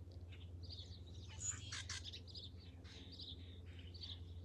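Small birds chirping repeatedly in short, high calls over a steady low hum.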